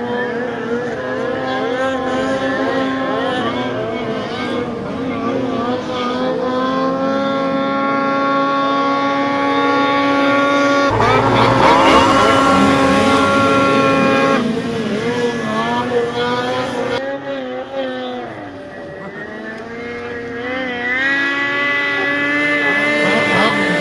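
Snowmobile engines running at high revs while the sleds skim across open water, their pitch wavering up and down. About eleven seconds in a sled passes close, throwing spray with a rushing hiss for a few seconds.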